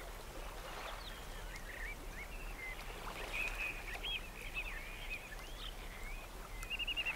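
Small birds chirping: scattered short whistled chirps and slurred notes, with a quick run of repeated notes near the end, over a faint low hum.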